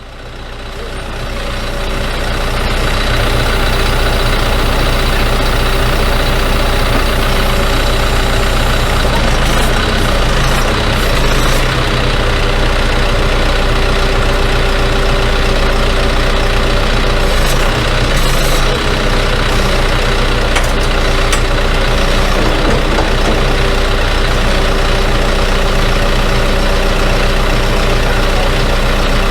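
Tractor engine running steadily, fading in over the first couple of seconds.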